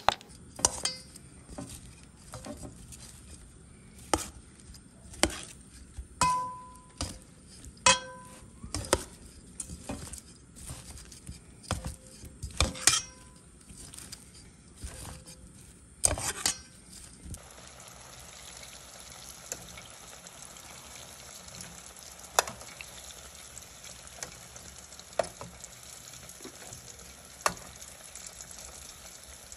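Metal tongs clicking and clinking against a stainless-steel mixing bowl as broccoli florets are tossed in beer batter, the bowl ringing briefly on a few strikes. A little past halfway this gives way to the steady sizzle of battered broccoli deep-frying in hot oil, with an occasional tap of the tongs.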